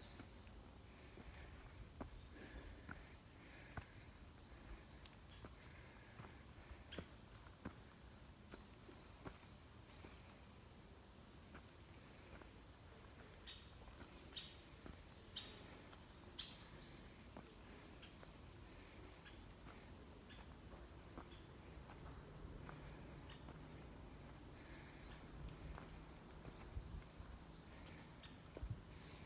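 Steady chorus of crickets in the forest, a continuous high-pitched trill, with faint footsteps on the trail underneath.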